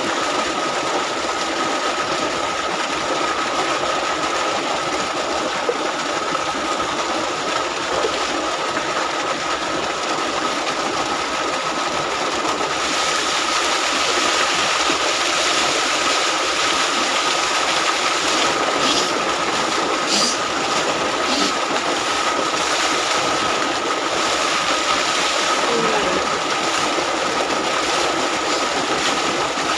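Mountain water pouring and splashing steadily. It grows brighter about a third of the way in, with a few sharper splashes a little later, and a thin steady high tone sits over it.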